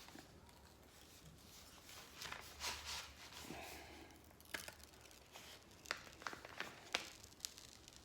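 Crinkling and rustling as a diamond painting canvas with its plastic cover is handled, with a few sharp clicks and taps in the second half.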